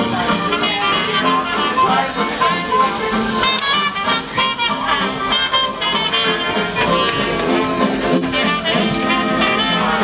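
Jazz music led by brass instruments, playing steadily with changing melodic notes.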